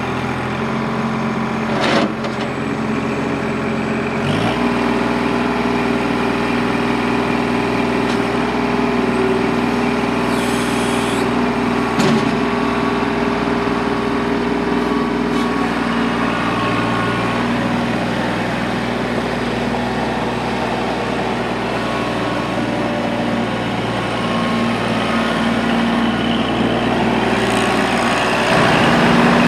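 Kubota L2501 compact tractor's three-cylinder diesel engine running steadily as the tractor drives, its note changing about four seconds in. Two sharp knocks come through, one about two seconds in and one about twelve seconds in.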